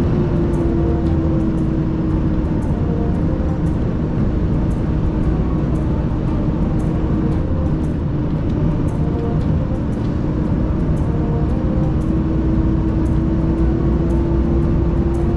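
Tractor-trailer cab interior while driving: steady engine and road rumble, with a steady whine running throughout.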